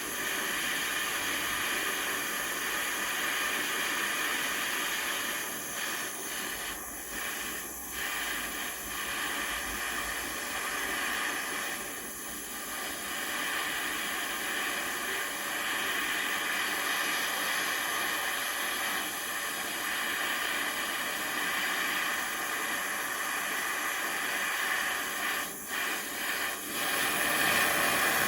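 Gas torch flame hissing steadily while it heats a steel steering rod, with a few brief dips in the hiss.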